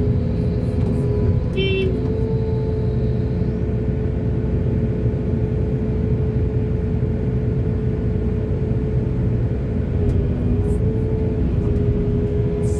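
Diesel engine of a backhoe loader running steadily under work, a loud constant rumble with a steady hum. A short high chirp sounds about a second and a half in.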